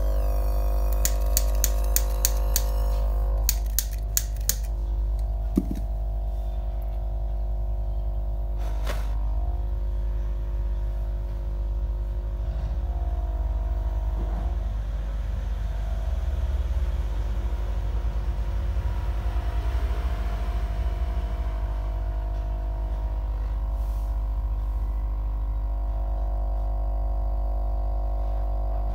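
LPG jewellery gas torch burning with its air supply on: a steady low roar under a constant hum. It is lit with a lighter, and a run of sharp clicks comes in the first few seconds. Near the end the hum grows stronger as the flame is set to a sharp blue jet.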